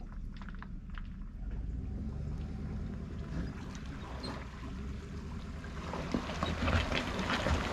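Engine idling steadily with a low hum. From about six seconds in, water splashing and crackling joins it.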